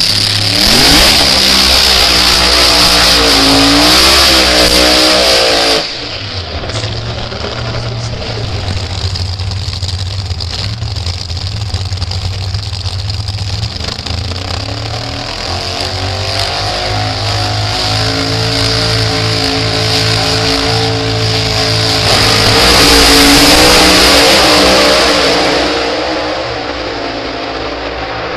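Drag racing car engines revving hard, the pitch climbing and falling, until the sound cuts off suddenly about six seconds in. Engines then run steadily at the start line, building to another loud surge of revving at about twenty-three seconds that drops away near the end.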